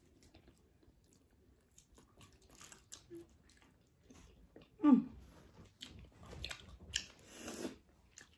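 Close-miked chewing and biting of sauced chicken wings: wet mouth clicks and smacks, sparse at first and busier in the second half. One short, louder voiced sound about five seconds in.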